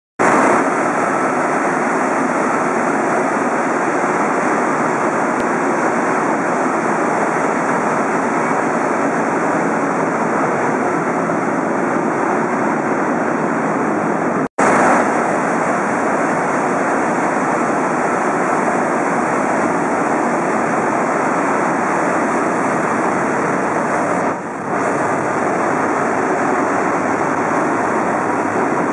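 Hydroelectric turbine and generator of the Kurobe No. 4 power station spinning at high speed, a loud, steady rushing noise. It cuts out for a split second about halfway through.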